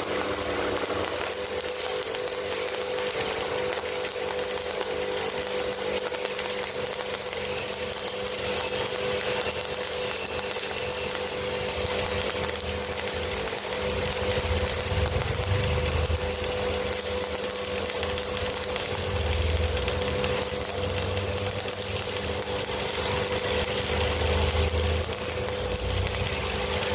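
Arc welding with a number-10 electrode: a continuous crackling hiss from the arc with a steady hum underneath.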